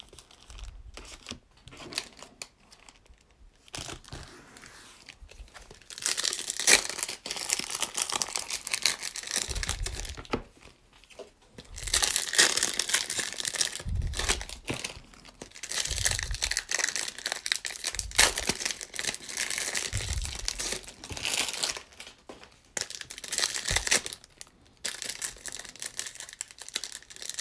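Foil wrappers of baseball-card packs crinkling and tearing as the packs are ripped open by hand, coming in several bouts a few seconds long after a quieter start, with a few dull bumps of handling.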